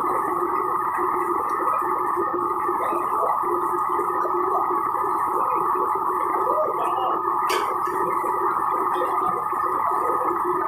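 Steady noise of a commercial wok range running, its gas burners going while a tap pours water at the wok station. There are a few faint clinks of utensils and one sharp knock about two-thirds of the way through.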